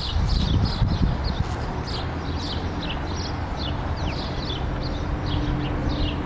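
Birds chirping, short falling chirps several times a second, over a low steady rumble; a faint steady hum comes in about two seconds in.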